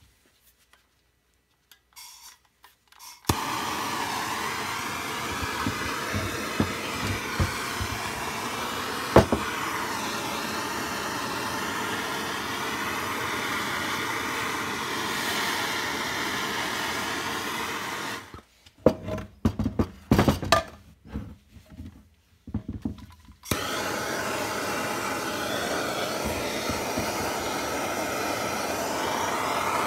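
Heat gun switched on about three seconds in, blowing steadily on the alloy crankcase to loosen a stuck main bearing. Near the middle it stops for about five seconds, filled with a few sharp knocks and clatters, then runs steadily again.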